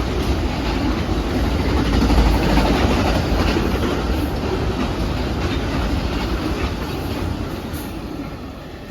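Amtrak Auto Train's railcars rolling past at speed, a steady rumble with wheels clacking over the rail joints, easing off near the end as the train moves away.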